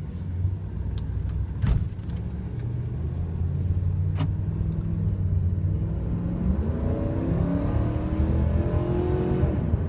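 A Dodge Ram 2500's 5.7-litre Hemi V8 heard from inside the cab, running steadily at first. From about six seconds in the truck accelerates hard, and the engine note rises as the revs climb high. Two short clicks sound in the first half.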